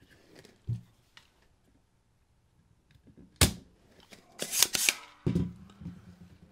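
Spring-loaded desoldering pump (solder sucker) firing with one sharp snap as it pulls molten solder off the LCD connector pins, then a quick cluster of rasping strokes and a knock as it is handled and re-cocked.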